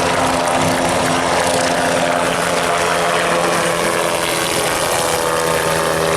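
Aircraft engine and propeller running steadily: a continuous drone with a hum of several steady tones over a wash of noise, the tones shifting slightly in pitch near the end.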